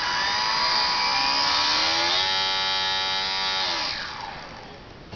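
Small electric motor from a P-51 RC plane spinning a 5043 propeller on a home-made balsa RC plane. The whine rises in pitch as the throttle opens, holds steady for about a second and a half, then winds down and stops near the end. A short click follows.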